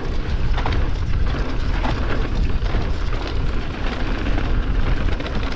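Wind rumble on the microphone mixed with the tyre noise and clatter of an electric mountain bike descending a dirt trail.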